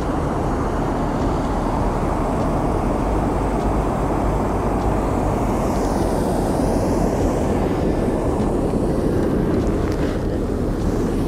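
Steady rumble of river water spilling over a low-head dam weir, an even roar with no breaks.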